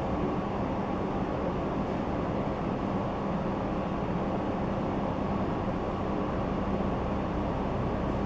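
Steady indoor background noise with a constant low hum, unchanging throughout.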